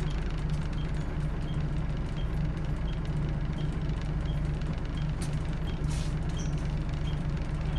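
Scania DC9 five-cylinder diesel engine of a Scania L94UB bus running steadily, heard from inside the passenger saloon as a constant low drone. A faint regular tick repeats about every 0.7 s over it.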